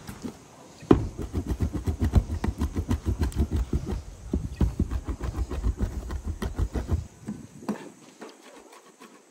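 Knife chopping rapidly on a cutting board, several heavy strokes a second, starting about a second in and stopping about seven seconds in.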